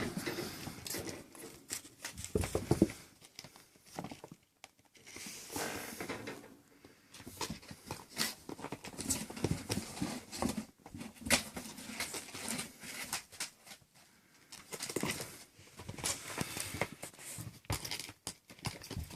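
Six-week-old kittens playing: paws and claws scrambling and scratching, irregular clicks and scuffles in bursts with short pauses.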